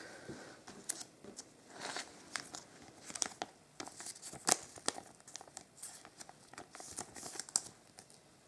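Thin clear plastic card sleeve crinkling and rustling in the fingers as a chrome trading card is slid into it, in a run of short, sharp crackles.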